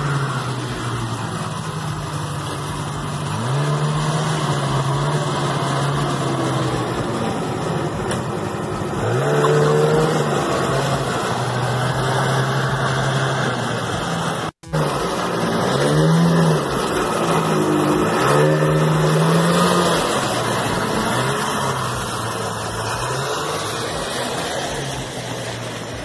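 Vintage Ski-Doo Elite twin-track snowmobile with a swapped-in Ski-Doo Formula 700cc two-stroke engine running, its pitch rising and falling as the throttle is opened and eased off several times. The sound drops out for a moment about halfway through.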